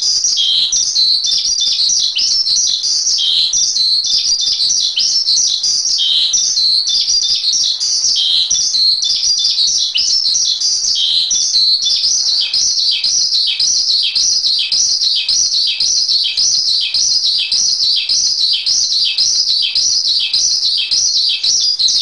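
Asian pied myna (jalak suren) singing a loud, unbroken string of fast chattering notes. In the second half the song settles into a steady rhythm of about two short falling notes a second.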